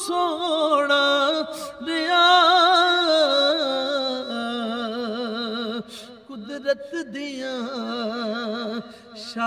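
A man singing a Punjabi naat, a devotional poem in praise of the Prophet Muhammad, without accompaniment. He draws out long wavering notes with ornamented runs, breaking off briefly about six seconds in and again near nine seconds.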